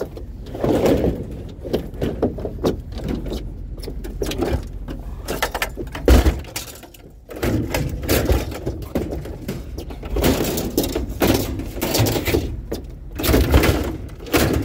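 Clattering, scraping and knocking of curbside scrap being handled and loaded, with heavy thuds about six seconds in and again near the end.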